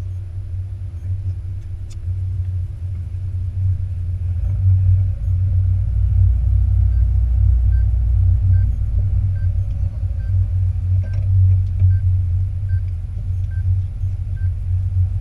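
Low engine and road rumble of a car being driven, heard from inside the cabin, growing louder about four seconds in. A faint, even ticking, about one every three-quarters of a second, joins about seven seconds in.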